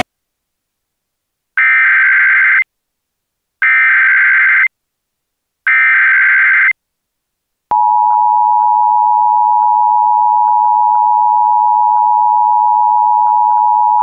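Emergency Alert System SAME header: three identical bursts of warbling digital data tones about two seconds apart, then a long, steady, piercing attention tone starting about eight seconds in. The sequence signals an incoming emergency alert, here a child abduction AMBER Alert.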